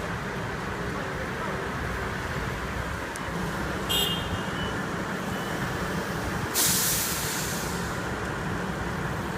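Heavy diesel construction machinery running steadily, a low rumble. About four seconds in there is a brief high squeal, and about six and a half seconds in a sharp hiss of compressed air lasting about a second, as from a truck's air brakes.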